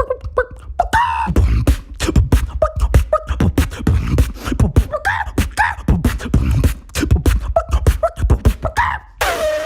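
Beatboxing: a fast mouth-made kick-and-snare beat with short pitched vocal calls mixed in, part of a routine imitating animal sounds. About nine seconds in, the beat stops for one long held call that slides slightly down in pitch.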